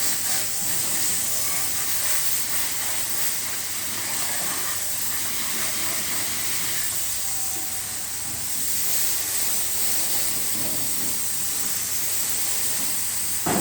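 Steady hissing spray of a high-pressure water jet washing an air-conditioner unit, with a short thump near the end.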